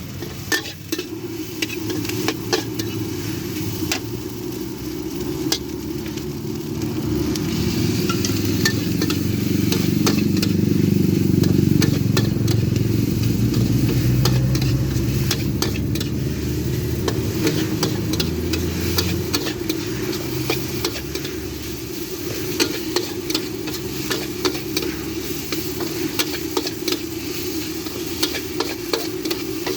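Seafood fried rice with shrimp and squid being stir-fried in a wok: sizzling, with the spatula clanking and scraping against the pan many times. Underneath runs a steady low rumble that swells in the middle and eases off after about two-thirds of the way.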